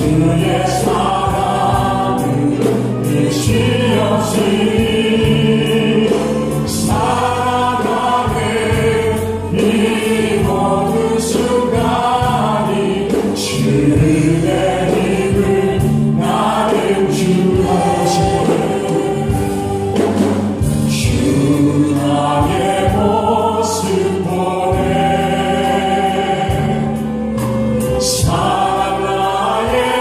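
Church praise team singing a Korean worship song, women's and a man's voices amplified through handheld microphones, over instrumental backing with a regular beat.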